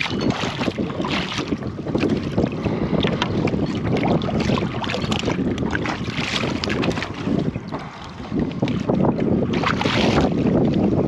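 Wind buffeting the microphone over water lapping against a small boat's side, with scattered small knocks and rustles from handling the rod and baited rig.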